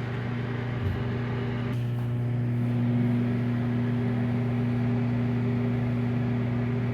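Microwave oven running: a steady electrical hum with a fan-like noise that grows louder about two seconds in, and a faint click about a second in.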